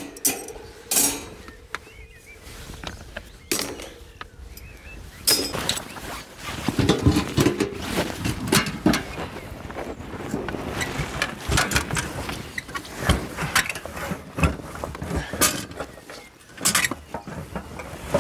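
Nylon carry bag rustling, with irregular clicks and knocks from a folding aluminium camp frame as it is pulled out of the bag and handled.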